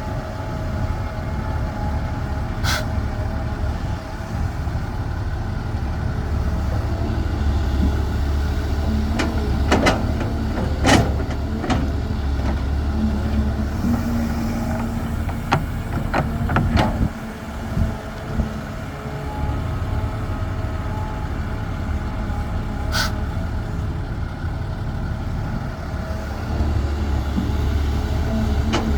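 CAT 320 hydraulic excavator's diesel engine running steadily under load while it works, with a hum from the hydraulics. Sharp knocks and clanks come now and then, most of them in a cluster around the middle.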